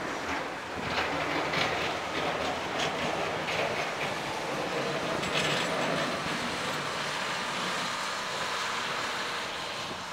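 Heavy airfield snow-removal equipment running: a steady mechanical noise, with a run of sharp rattles and scrapes in the first half.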